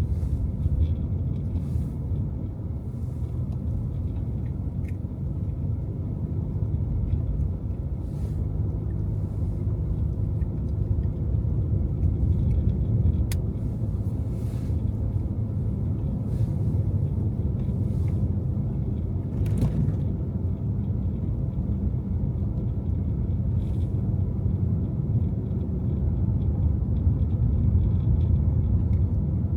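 Steady low rumble of a car driving through snowy city streets, with road and engine noise and a few faint clicks.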